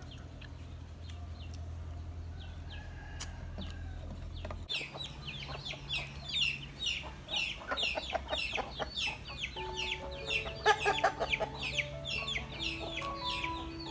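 Chickens clucking and cheeping: many short high calls, several a second, that start about a third of the way in after a steady low hum.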